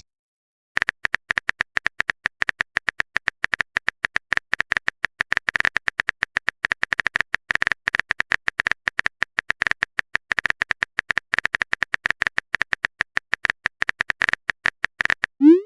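Phone keyboard typing sound effect: rapid, irregular clicks, several a second, starting about a second in. A short rising tone comes right at the end.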